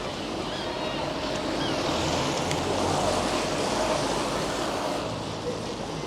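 A rushing noise swells and fades over about four seconds, like a vehicle passing on the road, with faint voices in the background.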